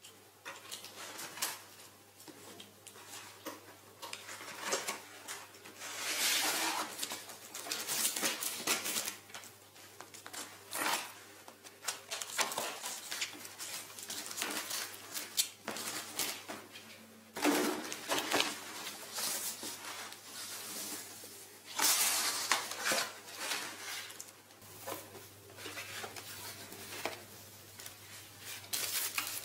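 A cardboard shipping box being opened by hand: irregular bursts of tape tearing, cardboard flaps scraping and plastic wrap rustling as the items inside are handled.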